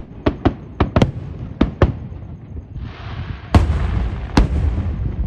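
Aerial fireworks bursting: a quick run of sharp bangs, then from about three seconds in a dense steady hiss with two heavier booms over it.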